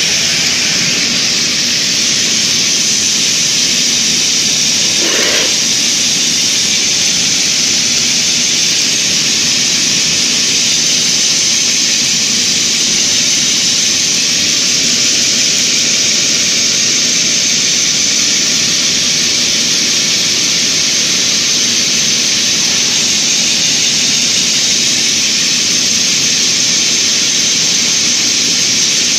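Steel wire drawing machine running: a steady loud hiss and whir with a low hum underneath.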